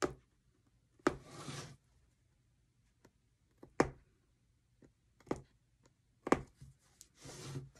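Punch needle stabbing through fabric stretched taut on a frame: a string of sharp, unevenly spaced taps, with two longer scratchy rubs of thread and cloth about a second in and near the end.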